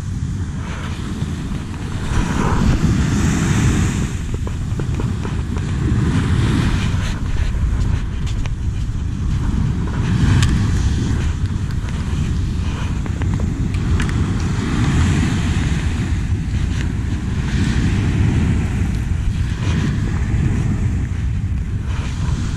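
Wind buffeting the camera microphone over waves breaking on the shore, a steady low rumble with a few light clicks.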